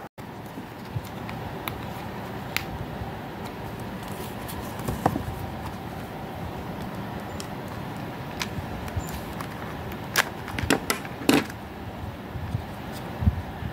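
Light clicks and taps from a small plastic coin-cell battery holder and coin battery being handled by hand, with a cluster of sharper clicks about ten to eleven and a half seconds in, over a steady background hiss.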